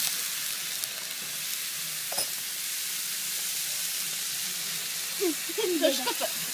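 Monjayaki batter liquid frying on a hot electric griddle plate: a steady sizzling hiss, with one light click about two seconds in.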